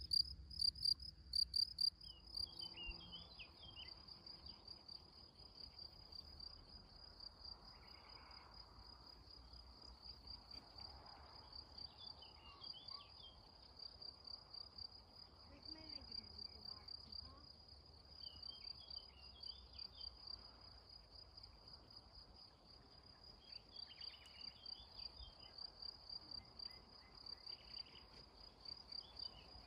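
Crickets chirping in a steady, rapid pulsing trill, with a close one loud for the first two seconds and fainter ones after. Short phrases of bird song come in every few seconds.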